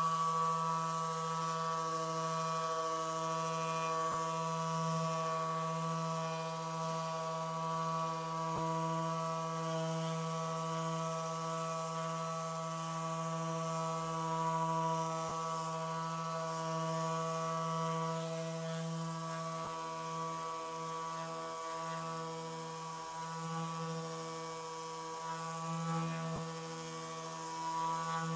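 Handheld electric massage gun running with a steady motor hum while pressed against the upper back, its level dipping slightly now and then.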